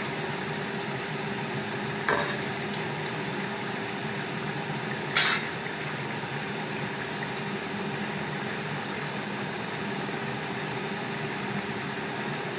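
A metal ladle knocks against a steel kadai, once about two seconds in and more loudly about five seconds in, as stirring of a thick simmering curry ends. Under it runs a steady hiss with a faint low hum.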